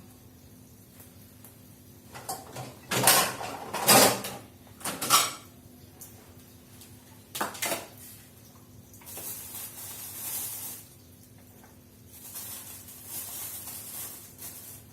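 Dishes and kitchen containers clattering as they are handled and set down: a run of loud knocks a few seconds in and two more a little later, followed by two stretches of soft hissing.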